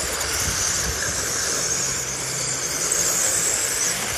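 Several 17.5-turn brushless-motor 1/10-scale RC dirt-modified cars lapping a clay oval, giving a steady high-pitched electric-motor whine over a rushing noise. A faint low hum runs underneath.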